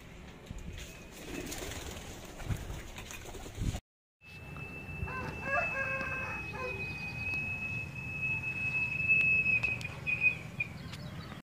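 Pigeons' wings flapping as the plosur pigeons fly in to the loft, with a steady high thin tone through much of the second half and a short pitched call about five seconds in. The sound drops out briefly twice.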